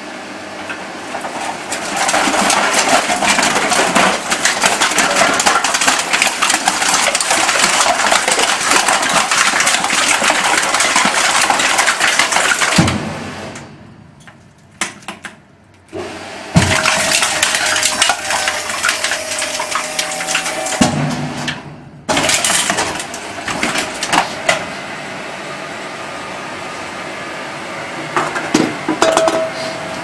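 Bramidan 4-X30 vertical baler's hydraulic press plate crushing a load of steel tin cans: loud crackling, crumpling metal for about ten seconds. After a short quiet pause, more crunching and clanking comes in two spells, then the machine settles into a steady hum.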